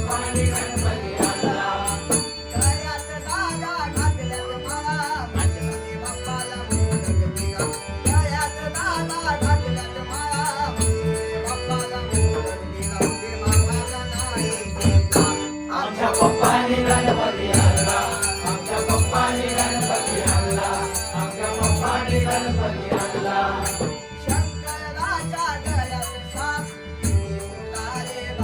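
Konkan traditional bhajan: voices singing a devotional song over a steady drum beat, with bright ringing of small hand cymbals and held accompanying tones.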